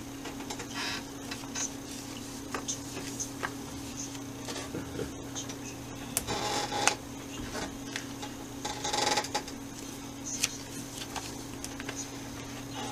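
Studio room tone: a steady low electrical hum with scattered small clicks and rustles, and two brief noisy bursts around six and nine seconds in.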